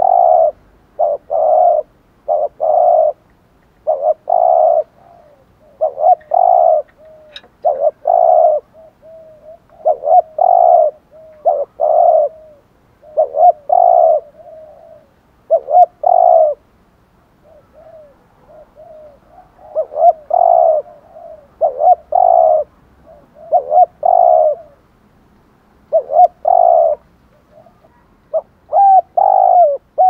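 Spotted dove cooing: loud, short coos in groups of two to four, repeated every second or two with a few longer pauses.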